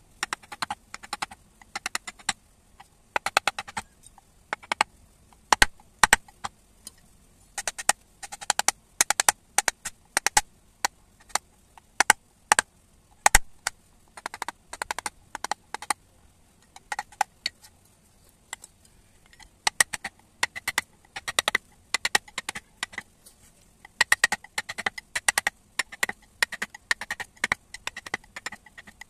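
Flat wood-carving chisel being driven into a wooden block, giving sharp wooden taps in quick runs of several a second with short pauses between.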